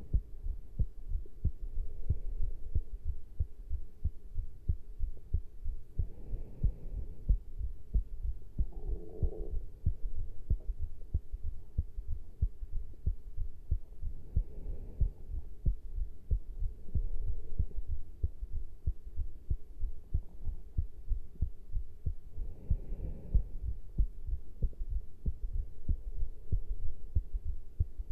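Human heartbeat after caffeine intake: a steady, close run of low thuds, with a soft swell of noise about every eight seconds.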